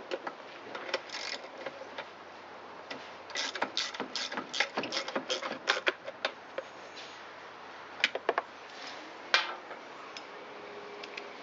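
Hand ratchet wrench clicking as a bolt is run in and tightened, in a quick run of clicks a few seconds in, then a few separate metal clicks and clinks.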